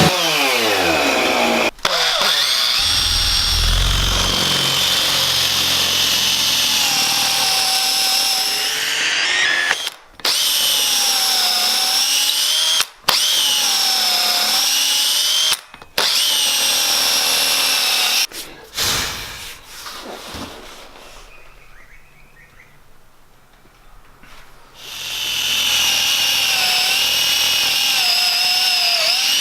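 Chainsaw cutting into the top of a wooden log stump, its pitch dipping and rising as it works through the wood. The sound breaks off abruptly several times and drops low for a few seconds about two-thirds of the way through, then runs again.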